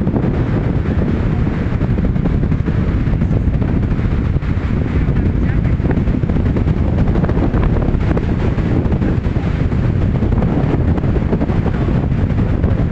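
Strong wind buffeting the microphone: a loud, steady low rumble with gusty flutter.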